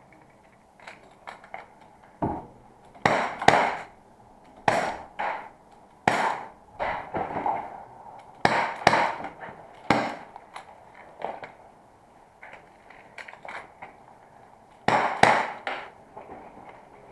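Airsoft revolver firing a timed competition stage: sharp shots, several in pairs about half a second apart, with longer gaps between groups.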